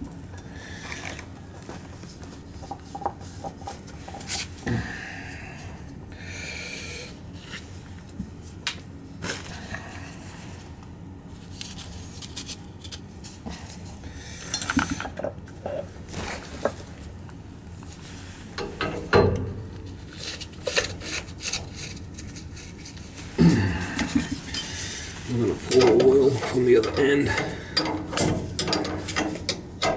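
Metal parts of a heating-oil tank filter clinking and scraping, with plastic packaging rustling, as the filter cartridge and bowl are handled and fitted back onto the filter head. The sounds come as scattered clicks and knocks, busier and louder in the last few seconds.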